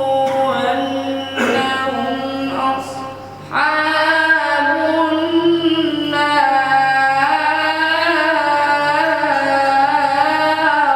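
A man's voice reciting the Quran in the melodic, drawn-out tajwid style, holding long wavering notes. It breaks off briefly about three seconds in, then resumes with a long ornamented held line.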